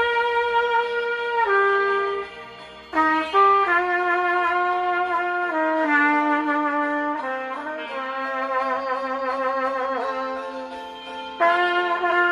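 Trumpet playing a slow melody of long held notes, some with vibrato, with a soft, quieter passage a couple of seconds in.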